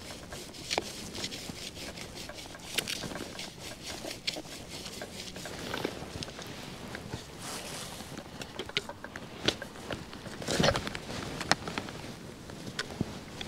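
Hand digger cutting and scraping into sandy soil, with scattered crunches, scrapes and clicks of earth and dry stubble, and a louder knock about ten and a half seconds in.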